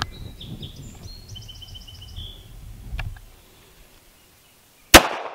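A single pistol shot from a SIG P232 .380 (9mm Kurz) comes about five seconds in, far the loudest sound, with a fading echo after it. Before it, a bird chirps a quick run of high calls over a low rumble.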